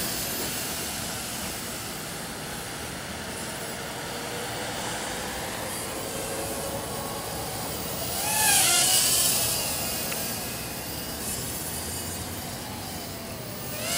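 Yi Zhan X4 quadcopter's motors whining in flight, rising and falling in pitch as it is steered, over a steady road-traffic rush. About eight seconds in, a louder rush passes and fades.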